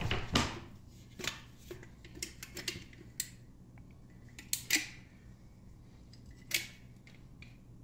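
Caulking gun squeezed to lay a bead of construction adhesive on a wooden toe-kick panel, with the panel being handled: scattered sharp clicks and light knocks, a couple of louder ones past the middle, over a low steady hum.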